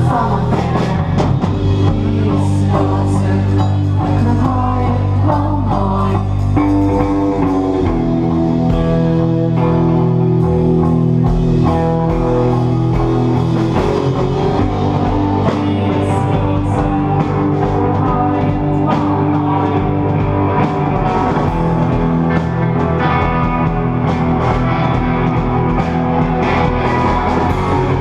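Garage rock band playing live: electric guitar, bass guitar and drum kit, loud and steady throughout.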